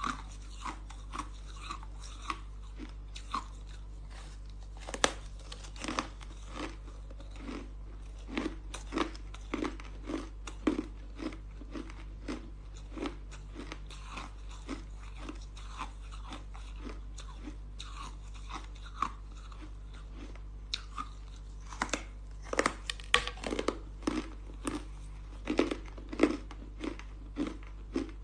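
A block of frosty white ice being bitten and chewed: crisp crunches coming about twice a second, with a run of louder, quicker crunches about three-quarters of the way through.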